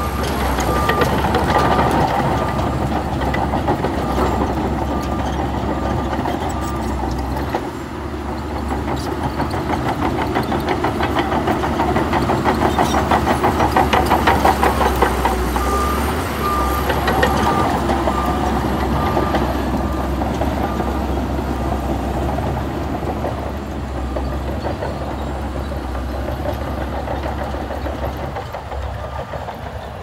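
Shantui crawler bulldozer's diesel engine running under load while steel tracks clatter as it pushes sand, the clatter loudest around the middle. A repeated beeping alarm sounds through the first several seconds and again a little past halfway.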